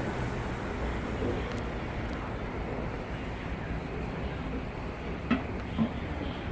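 Steady low rumble and hum of an MTR East Rail Line MLR electric train at the platform, with two short clicks or knocks about half a second apart near the end.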